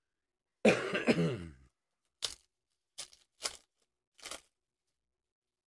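A man coughing once, under a second in, then four short crackles of a foil trading-card pack wrapper being torn open by hand.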